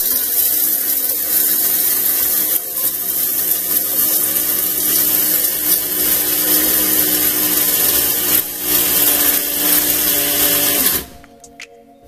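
Small electric blade coffee grinder running steadily as it grinds whole coffee beans, a loud motor whine over the rattle of the beans; it starts abruptly and stops about a second before the end.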